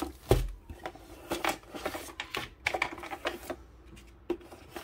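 A low thump about a third of a second in as the plastic-wrapped rolled canvas is set down on the table, then a run of irregular clicks and crinkles from the cardboard box and plastic packaging being handled.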